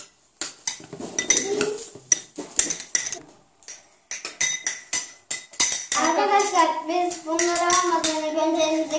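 Metal spoons clinking and scraping against small glass bowls as slime is stirred, in many quick irregular clicks. For the last three seconds a child's voice holds a drawn-out, wordless note over the clinking.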